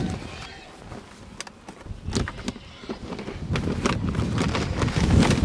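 A sack of livestock feed being handled and emptied into a 55-gallon drum: scattered rustles and clicks from the bag, then a louder rush of feed pouring in that builds toward the end.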